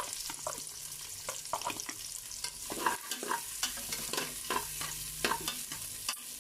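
Garlic and onion sautéing in oil: a light sizzle under irregular scrapes and knocks of a spatula stirring them around the pan.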